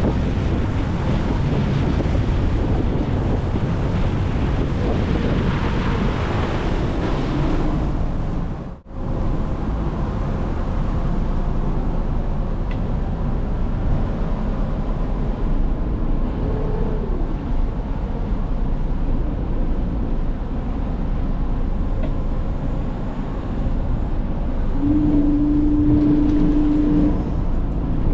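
A small passenger ferry's engine runs steadily under wind noise on the microphone and the rush of water, as the boat motors in to a wharf. The sound drops out briefly about nine seconds in. A steady tone sounds for about two seconds near the end.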